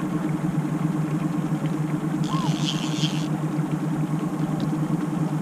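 Boat's outboard motor running steadily at trolling speed, a constant low hum.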